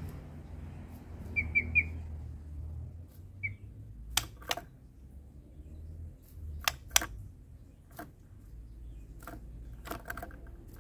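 White-rumped shama (murai batu) giving three quick short high chirps, then one more, followed by a scattered series of sharp clicks, over a low steady rumble.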